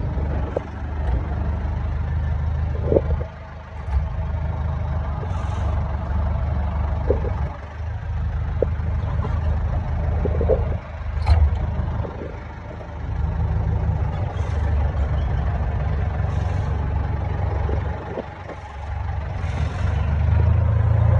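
Farm tractor engine running under way, a steady low drone that dips in level several times. Occasional short clanks and knocks come from the tractor and its front loader as it rolls over the field.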